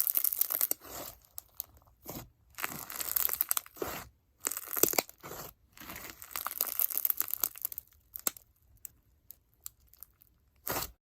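Hands working an icee-jelly crunch slime packed with foam beads and bingsu beads, making crackling, popping and squishing sounds in repeated bursts. After about eight seconds it thins to scattered small pops, with one last short burst just before it stops.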